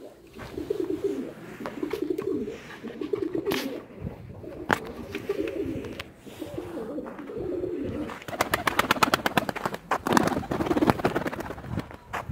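Domestic pigeons cooing, a low rolling, wavering coo that repeats over and over. Near the end, a louder rapid run of clicks and rustling.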